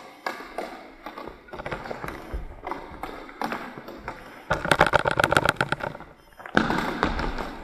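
Floorball play in a gym hall: plastic sticks and ball tapping and knocking against each other, the floor and the goal, echoing in the hall. About four and a half seconds in comes a loud quick clatter of many clicks, followed near the end by a louder rushing, scuffing noise.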